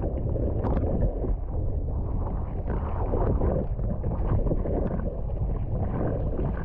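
Wind buffeting the microphone over water rushing and sloshing around an inflatable stand-up paddleboard on the sea. The sound is steady and muffled, with a heavy low rumble.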